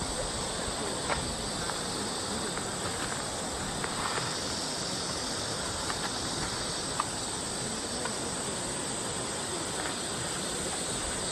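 Steady outdoor ambient hiss with an even high-pitched band over it and a few faint scattered ticks.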